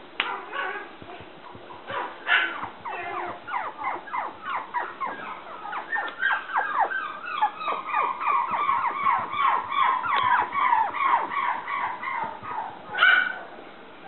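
Young toy poodle puppy whining and yipping in a rapid run of short, high cries that fall in pitch, several a second, with one louder yelp near the end.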